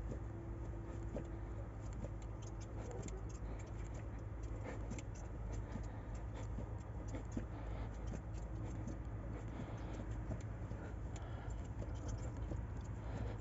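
Faint, irregular clicking and ticking over a low steady hum while the diesel fuel system is hand-primed, with air still bleeding out of the fuel line.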